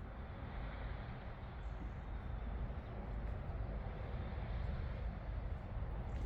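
Steady low rumbling outdoor background noise with an even hiss above it, with no distinct animal calls.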